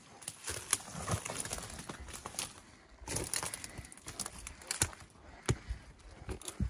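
Footsteps climbing concrete steps, shoes scuffing on the concrete and dry twigs and brush crackling underfoot in an irregular series of sharp clicks.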